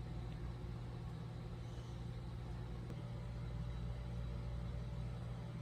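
Steady low background hum, even throughout, with no clear events.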